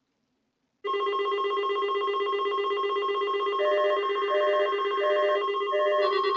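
Electronic emergency alert tone cutting in sharply about a second in: a steady layered electronic tone, with a higher beep pulsing about every 0.7 s, four times, joining halfway through.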